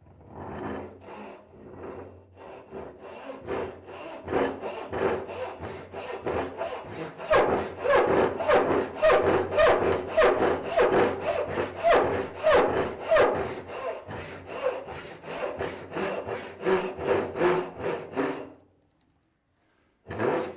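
Hand saw ripping down the cheek of a slip joint in a board held in a bench vise, in rapid, even back-and-forth strokes, about three a second. The strokes grow louder about seven seconds in and stop shortly before the end.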